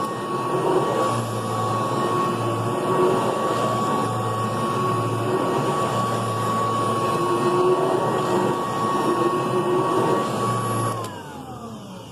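Kirby 2-CB Classic III upright vacuum running with a steady high whine and rushing air, then switched off about eleven seconds in, its motor whining down in pitch as it spins to a stop.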